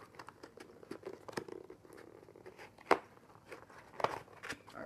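Hands working open a small cardboard mailing box: scattered scratching, crinkling and clicking of cardboard and packing tape, with a few louder snaps.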